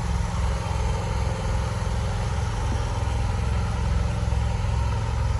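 Pressure washer's gas engine running steadily: a constant low drone with an even pulse.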